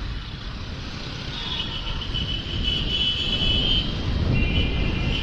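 TVS Ronin 225 motorcycle speeding up through traffic: wind rumble on the microphone over the engine, getting louder as speed rises. A high steady tone comes and goes on top.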